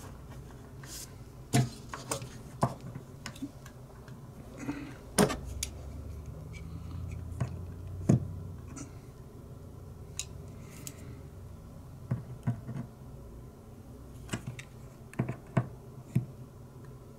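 Scattered small clicks and taps from handling a brass lighter filler valve and a small metal tool by hand, irregular and spaced out, over a low steady hum.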